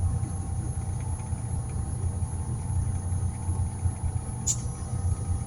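A motor running with a steady, low, pulsing rumble, and a single sharp click about four and a half seconds in.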